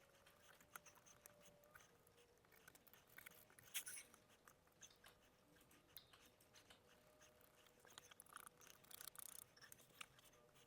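Near silence with scattered faint clicks and taps from small hardwood pieces being handled during a box glue-up.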